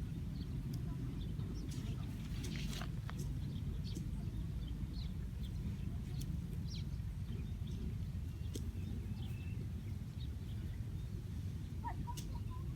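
Outdoor ambience: a steady low rumble with scattered small clicks and a few short bird chirps.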